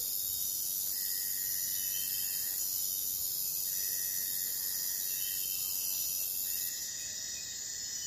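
A steady chorus of insects: a continuous high shrill, with a lower held note that comes in for a second or so and drops out again about every two and a half seconds.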